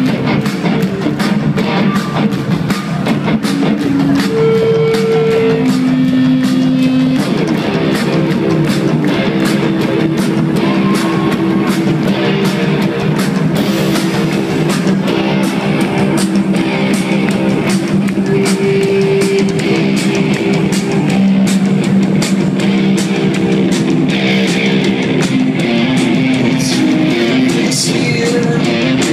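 Live rock band playing loud and steady: electric guitars over a pounding drum kit.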